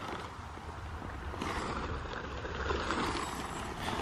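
Tent fabric rustling and crinkling as a nylon tent is unrolled and shaken out by hand on concrete, with a steady low rumble underneath.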